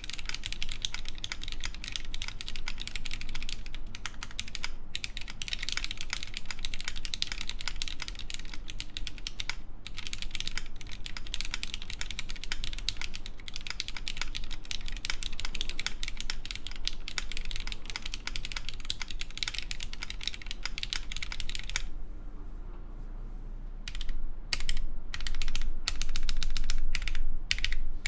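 Fast continuous typing on a Fox Lab Time65 mechanical keyboard with lubed Cherry MX Black linear switches, GMK keycaps and an aluminium plate with no foam. After a brief lull about three-quarters of the way through, slower, separate and louder keystrokes follow.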